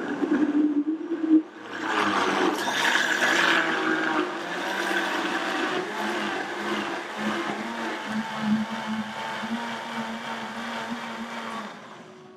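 Countertop blender motor running at speed, puréeing a jar of chopped raw vegetables into soup. It dips briefly about a second and a half in, picks up again and runs steadily, then cuts off just before the end.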